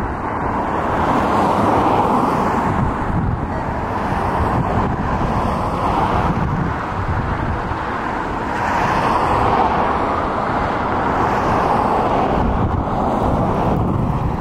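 Pierce fire engine's diesel engine running, with wind buffeting the microphone so the noise swells and eases every few seconds.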